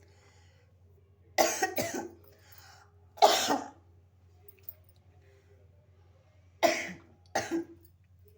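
A woman coughing in short, sharp bursts: two quick coughs, a louder single one, then two more near the end, brought on by the powder she has been sniffing up her nose.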